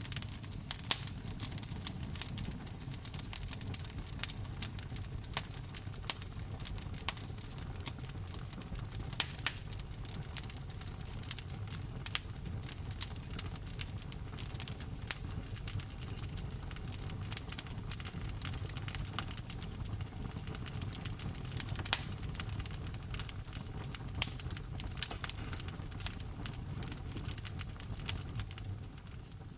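Wood fire crackling: frequent sharp pops and snaps over a low, steady rumble. The sound fades away right at the end.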